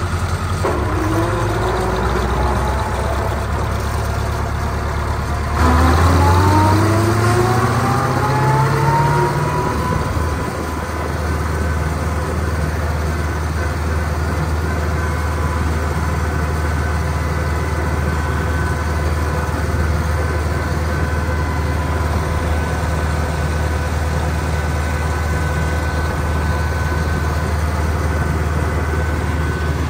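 1972 International Harvester 1468's V8 diesel engine driving the tractor. The engine speed dips right at the start and climbs back. About six seconds in it gets louder and rises steadily in pitch for about four seconds, then settles into a steady run.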